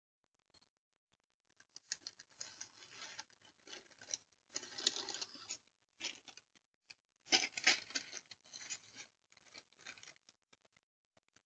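Irregular scuffling and rustling from a dog taking a package off a porch, heard through a Ring doorbell camera's microphone. It comes in uneven clumps and is loudest a little past the middle.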